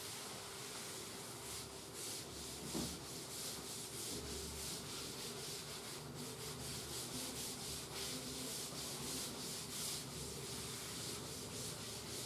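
Cloth duster wiping a chalk blackboard: quick back-and-forth rubbing strokes, a soft repeated swish, with one brief louder knock about three seconds in.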